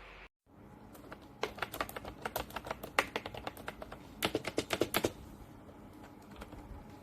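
Typing on a MOFII vintage-style wireless keyboard: a few seconds of quick key clicks, ending in a fast flurry of keystrokes.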